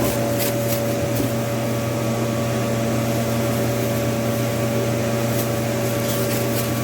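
Steady mechanical hum of a supermarket's machinery, with a constant low drone and a few steady tones. A few light clicks sound about half a second and a second in, and again near the end.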